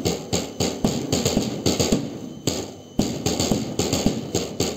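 Marching drums beating time for a march past, a steady run of sharp strikes about three to four a second, with a short lull about two and a half seconds in.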